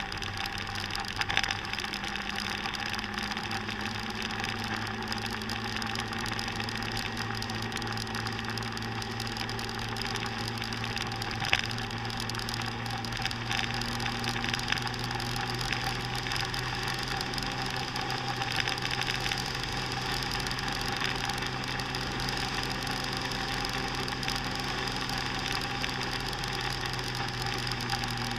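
Small scooter engine buzzing at a steady cruise with an unchanging pitch, over a steady rush of road and wind noise. Two brief knocks cut through, a louder one about a third of the way in.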